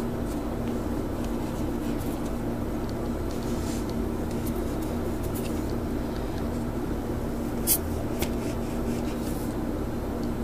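Steady mechanical room hum with a low held tone, under a few light taps of a cup being pressed down through rolled biscuit dough onto a wooden board; the sharpest tap comes about three-quarters of the way through, with a smaller one just after.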